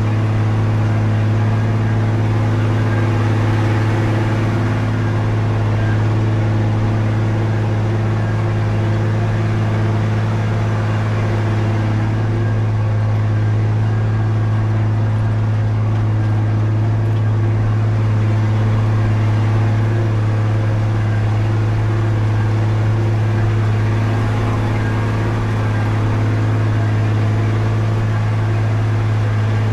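Heavy machine's diesel engine running at a steady speed, a constant low drone with overtones and mechanical noise that does not change.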